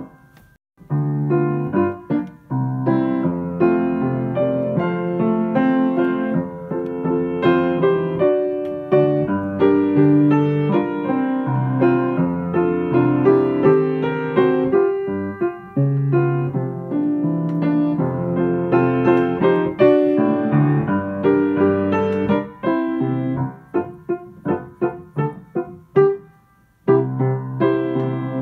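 Background piano music, with a brief pause just after the start and another near the end.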